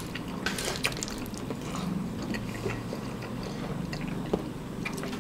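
Chewing and small wet mouth sounds of people eating spicy instant noodles and fried chicken, with a few faint clicks.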